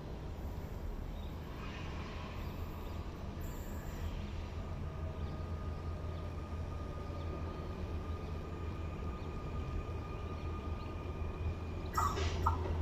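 Z 23500 TER 2N NG double-deck electric multiple units approaching the station, a steady low rumble with a faint, even whine above it. Near the end comes a short, louder burst of higher-pitched noise.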